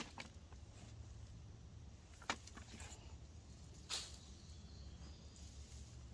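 Quiet handling noise from hand-harvesting potatoes: a few short sharp clicks or knocks, about two and four seconds in, over a low steady hum.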